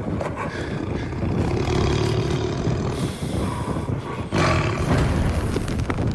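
Lions roaring in a den, louder about a second and a half in, with a sudden louder roar just after four seconds in.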